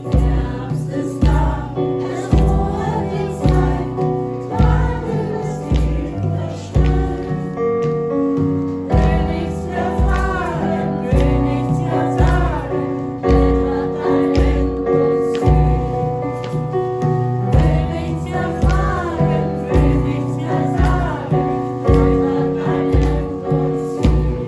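Choir singing a song over instrumental accompaniment with a steady low beat.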